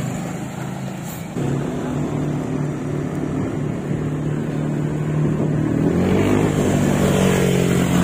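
Motorcycle engine running at road speed, a steady hum that gets a little louder over a second in and rises in pitch about six seconds in as it speeds up.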